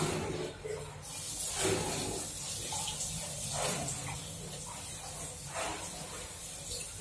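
Tap water running into a wash basin as soapy hands are rinsed under it: a steady hiss that starts about a second in.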